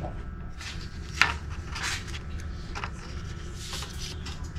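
A paper menu leaflet being unfolded and handled on a train's tray table: several short paper rustles and one sharp tap about a second in. The steady low rumble of the moving train runs underneath, heard inside the passenger cabin.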